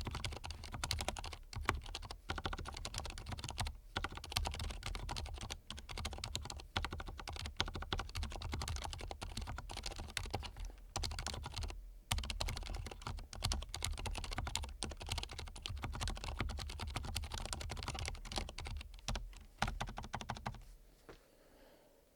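Fast continuous typing on an Archon K77 mechanical keyboard with lubed Cherry MX Silent Red linear switches: dense, soft, muted key strokes with brief pauses, stopping about 20 seconds in.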